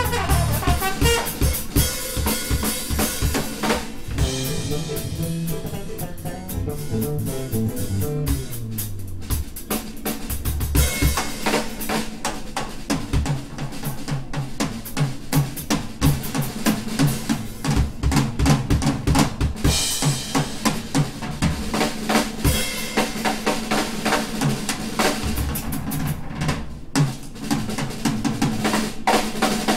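Live drum kit solo in a jazz number: a dense, fast run of strokes on the kit, with no horns playing.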